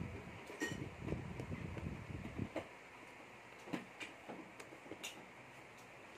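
Small metal clicks and ticks from a precision screwdriver turning a screw in the hub of an Okuma Cavalla reel's T-bar power handle. Rubbing and handling noise fill the first couple of seconds, then scattered single clicks follow over a faint steady hiss.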